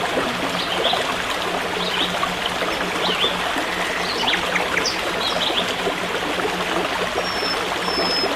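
Forest stream running steadily, with small birds chirping briefly over it and a thin high whistled note repeated a few times near the end.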